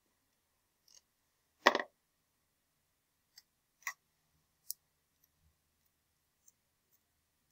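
A few short, sharp clicks and knocks from a dry-erase marker and its cap being handled and snapped shut. The loudest is about two seconds in, followed by smaller clicks around four and five seconds.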